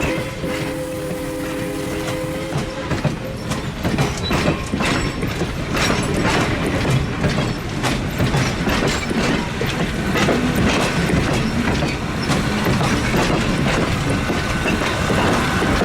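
A steam locomotive's chime whistle sounds a chord that cuts off about two and a half seconds in. Then the train runs past with steady rumbling and rapid clicking of wheels over the rail joints.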